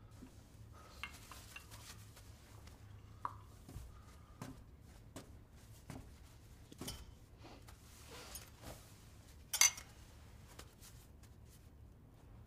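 Quiet kitchen clatter: light clinks and knocks of a glass and dishes being handled and stirred, with a brief louder burst of noise about nine and a half seconds in.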